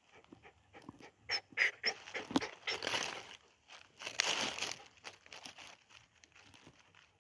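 A dog close to the microphone in dry leaf litter: a run of small crackles and clicks, then two breathy bursts, the second as it licks its lips.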